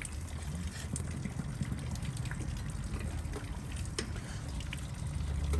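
A wet cloth rag being handled and wrapped around a brass service valve and copper line, with faint rustling and a few small clicks over a steady low rumble.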